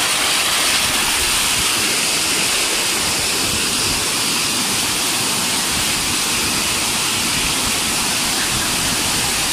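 Small rocky waterfall with white water cascading over boulders: a steady, even rush of water.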